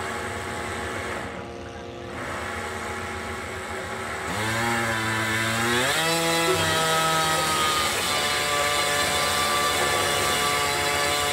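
Small engines on a radio-controlled scale model of the Spruce Goose flying boat, running. About four seconds in, one revs up, its pitch climbing over a second or two, then holding a steady higher note.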